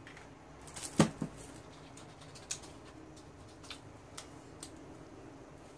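Table-side eating and handling sounds: a sharp double knock about a second in, then a few scattered soft clicks as bread is torn apart by hand.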